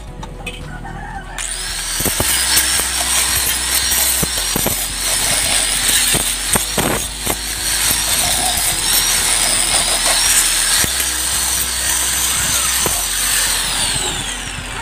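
Angle grinder on steel weld seams: it starts about a second in with a high steady whine, with small changes in pitch as the disc is pressed onto the seams. Near the end it is switched off and the whine falls away as the disc spins down.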